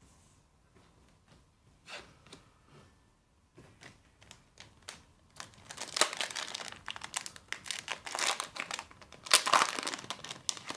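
A Yu-Gi-Oh booster pack's foil wrapper being crinkled and torn open by hand: a few faint handling clicks, then about halfway through a dense run of crinkling and tearing that is loudest near the end.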